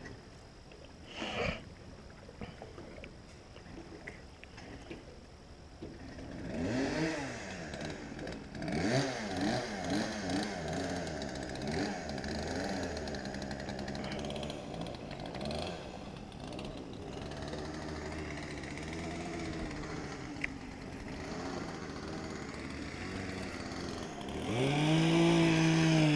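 A small motor running, its pitch swinging up and down again and again from a few seconds in, then settling into a louder, steadier hum near the end.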